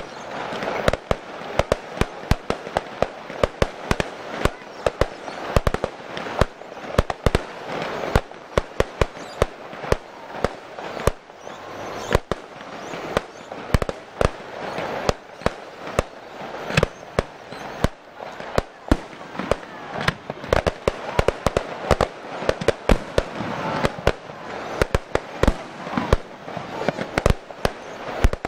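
Aerial fireworks display: shells bursting in a rapid, irregular string of sharp bangs, several a second at times, over a continuous noisy wash.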